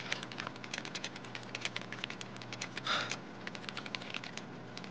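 Computer keyboard typing: quick, irregular keystrokes a few times a second, with a short breathy sound about three seconds in.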